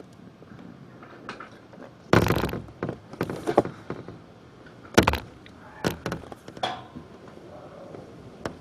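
A handful of sudden knocks and thumps, the loudest about two seconds in and another sharp one about five seconds in, with smaller ones between.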